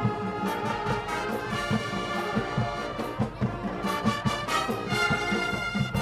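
Marching band playing live, with brass sustaining full chords over a steady beat of drum hits.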